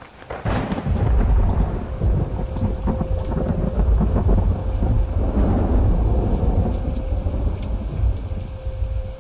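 Thunderstorm sound effect: a low thunder rumble over steady rain. It builds up over the first second and eases off near the end.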